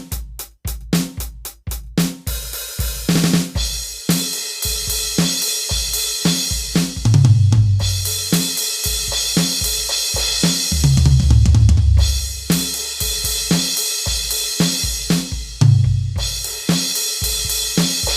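A rock drum kit playing a steady beat alone, with no other instruments: kick, snare, hi-hat and cymbals. The first couple of seconds are sparse hits, then a continuous cymbal wash comes in.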